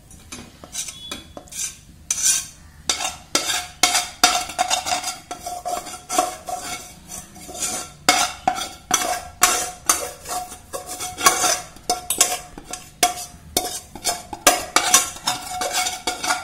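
Perforated steel spatula scraping and knocking scrambled egg out of a metal pan onto a stainless steel plate: rapid, repeated metal-on-metal scrapes and taps, with a ringing note from the metal between the strokes.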